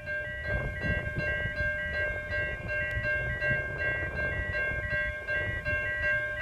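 Railway level crossing warning bells ringing: an electronic chime repeating about twice a second over steady high tones, with a low rumble underneath.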